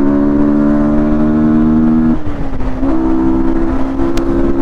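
A 155 cc single-cylinder motorcycle engine running at high, steady revs under way. A little past halfway the note dips slightly for under a second, then comes back to the same steady pitch.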